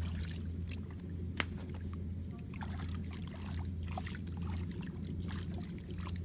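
Muddy water splashing and squelching as feet wade and hands grope through a flooded rice field, in many small irregular splashes with a sharp click about a second and a half in, over a steady low rumble.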